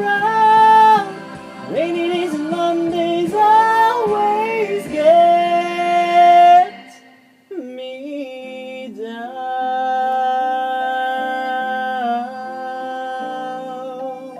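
A singer's voice with musical backing, bending through a sung line and holding long notes. About halfway through the voice stops after a brief dip, and the backing carries on alone with long held instrumental notes as the song winds down.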